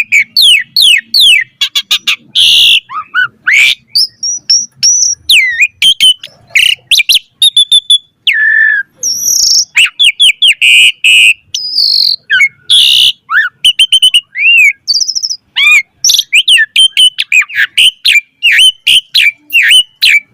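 Asian pied starling (jalak suren) singing a long, varied song: rapid whistled notes, chirps and rising and falling phrases in quick succession, broken by a few harsh, grating notes.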